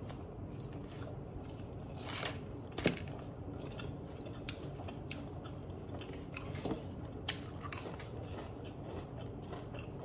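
A person chewing crunchy food close to the microphone, with scattered crunches; the sharpest comes about three seconds in, another just before eight seconds.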